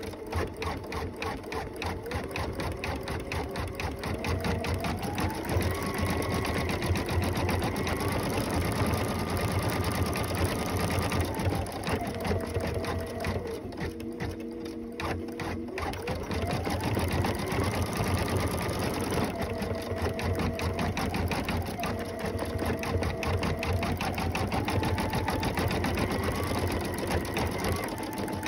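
Computerized embroidery machine stitching a design: a rapid, even clatter of needle strokes over a motor whine that steps up and down in pitch as the stitching speed changes. It drops lower for a few seconds around the middle, then climbs again.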